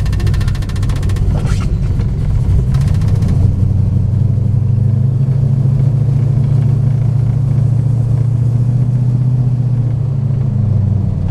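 Classic car's engine heard from inside its cabin while driving slowly: a steady low drone that rises a little about four seconds in as the car pulls ahead, holds, then eases off near the end.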